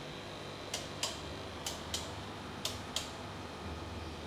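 Six light, sharp clicks in three pairs, each pair about 0.3 s apart and the pairs about a second apart, stopping about three seconds in, over a low steady hum.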